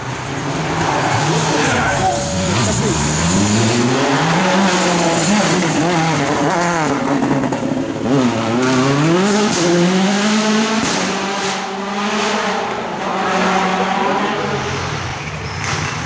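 Rally car engine revving hard through repeated gear changes, its pitch climbing and dropping again and again, with tyre and gravel noise underneath.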